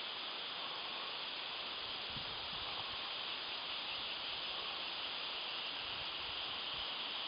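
Steady outdoor forest ambience: an even hiss, strongest in the upper range, with no distinct events.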